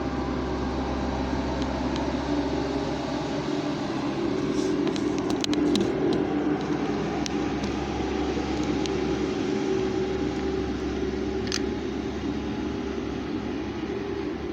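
Heavy diesel engine running steadily, with a cluster of sharp clicks about five seconds in.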